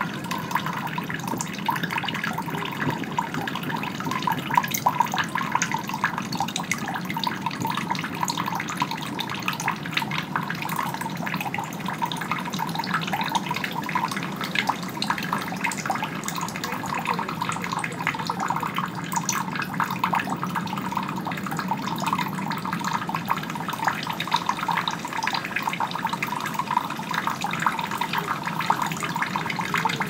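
Running water, steady, with many small splashes and drips.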